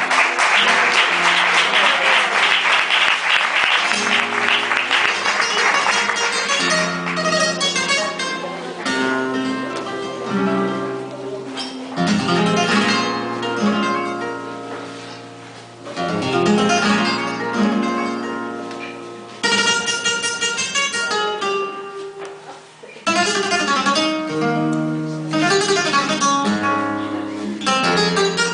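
Flamenco guitar played solo. It opens with a few seconds of dense, fast-strummed chords, then moves into picked melodic phrases separated by short breaks.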